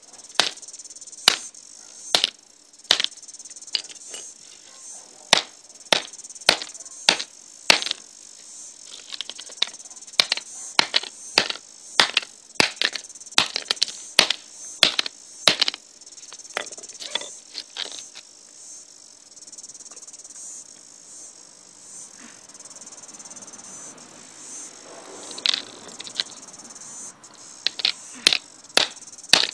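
Hammer blows on an old iPod: sharp, loud strikes, irregular at about one to two a second, stopping for several seconds past the middle and starting again near the end. A steady high-pitched buzzing drone runs underneath.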